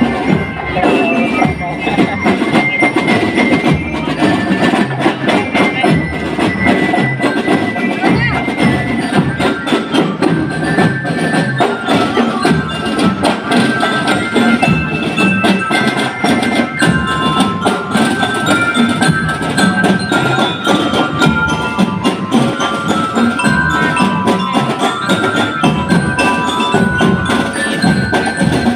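Drum and lyre corps playing: bell-lyres carry a melody of short high notes over a steady, dense beat of marching drums.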